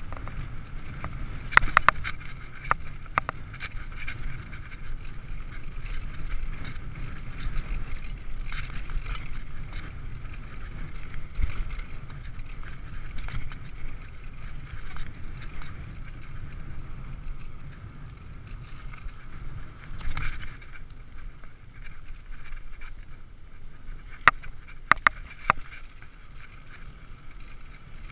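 Mountain bike riding over a dirt trail: a steady rumble of tyres and wind on the camera microphone, broken by sharp clicks and rattles from the bike over bumps, a few about two seconds in and a quick cluster near the end.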